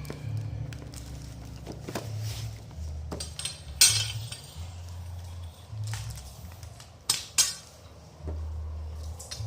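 Hard objects clinking and knocking as they are handled, with a loud clatter about four seconds in and two sharp knocks near seven seconds, over a low rumble.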